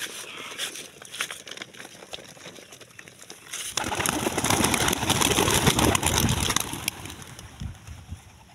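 Racing pigeons released from a plastic carrying crate: a few light clicks and knocks of the crate at first, then about four seconds in a loud flurry of wingbeats as the birds take off together, lasting about three seconds before it dies down.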